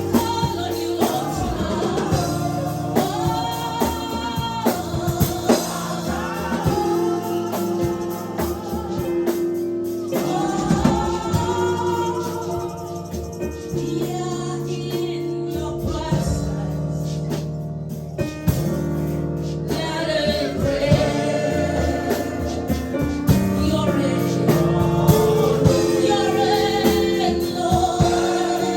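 Gospel worship music: singers, with a choir and a woman's voice, over a live band with sustained keyboard chords and a steady beat.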